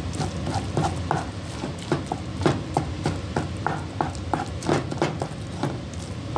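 A wooden spoon stirring yogurt into cooked scrambled eggs and vegetables in a nonstick frying pan: a quick, uneven run of knocks and scrapes against the pan, about three or four a second.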